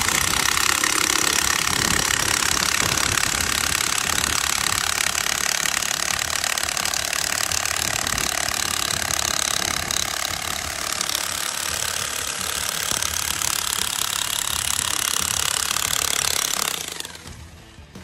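Electric demolition hammer running continuously with its chisel bit on a concrete floor, breaking up the slab. It stops about a second before the end.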